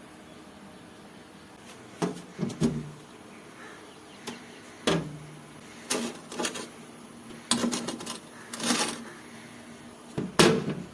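Refrigerator door, shelves and drawers being opened and handled: a string of irregular knocks and plastic clacks, the loudest near the end.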